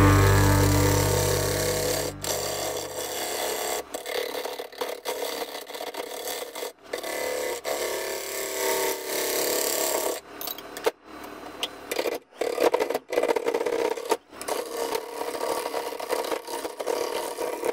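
A bowl gouge cuts the outside of a large wooden blank spinning on a Laguna wood lathe: a steady scraping, hissing cut, broken by several brief breaks. Rock music fades out in the first couple of seconds.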